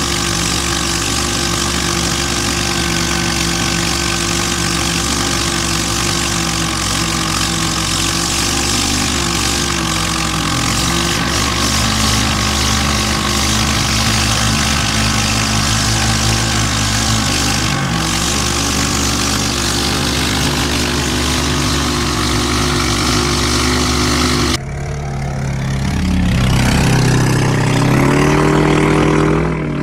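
Small boat's engine running steadily, heard from on board. Near the end, after a cut, a motorboat's engine speeds up, its pitch rising in steps as the boat runs away across the water.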